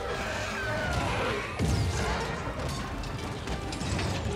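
Film battle sound effects: a swarm of Outrider creatures clawing over metal armour, with mechanical clanking and crashes and a heavy impact about a second and a half in.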